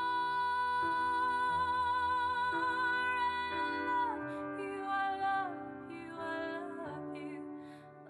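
Slow, gentle song with a female voice holding one long note for about four seconds before stepping down to lower notes, over soft instrumental accompaniment.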